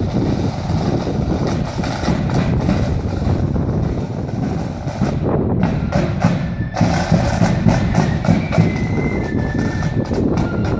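Marching band drums, bass and side drums, beating a steady march. High flute notes join in about seven seconds in.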